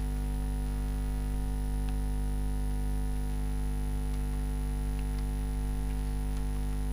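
Steady electrical mains hum with its stack of overtones. A few faint clicks of typing on a computer keyboard are scattered through it.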